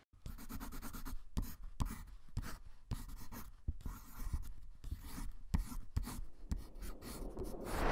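Pencil scratching on notebook paper in quick, irregular strokes while sketching a car.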